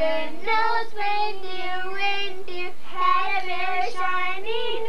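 A child and a woman singing a song together without accompaniment, in high voices with long held notes.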